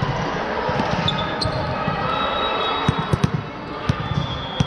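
Volleyball ball thuds and bounces in a gym over a steady hall din, with a quick cluster of sharp hits about three seconds in and a couple more near the end. Short high squeaks can be heard about a second in and near the end.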